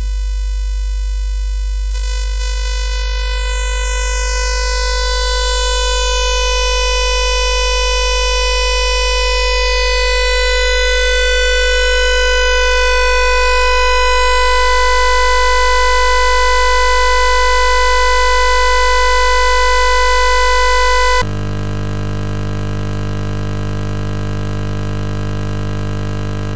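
Synthesized electronic tones from an oscilloscope animation's soundtrack: a steady, buzzing chord of held tones that swells slowly, with a high falling sweep about two seconds in. About twenty seconds in it cuts abruptly to a different, lower drone.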